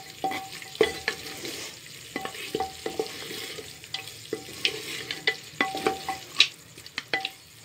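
Wooden spatula stirring and scraping chicken pieces through sizzling masala in a pot, with frequent irregular knocks of the spatula against the pot, several ringing briefly. This is the bhuna stage, frying the chicken in its masala.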